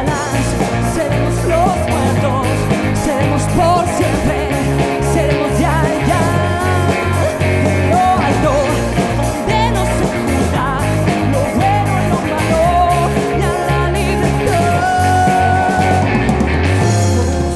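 A live band playing: electric guitars, synthesizers and a drum kit, with a lead vocal singing over them.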